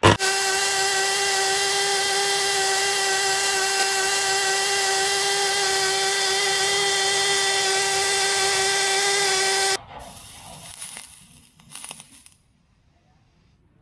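A small high-speed motor runs with a steady, high-pitched whine at constant speed, then cuts off abruptly about ten seconds in. A few faint knocks and rustles follow.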